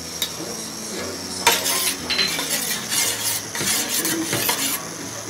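A metal spoon stirring in a stainless steel pot of mango pulp and sugar syrup, scraping and clinking against the pot's sides and bottom in an irregular run from about a second and a half in.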